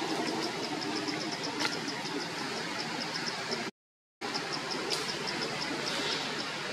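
An insect chirping in a steady high-pitched rhythm, about five chirps a second, over a constant outdoor hiss. The sound cuts out to silence for about half a second a little over halfway through.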